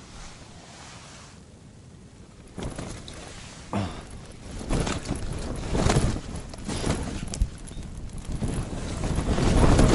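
Strong wind gusts buffeting and rattling the fabric walls of an ice-fishing tent. It starts about two and a half seconds in and comes in uneven surges, loudest near the end.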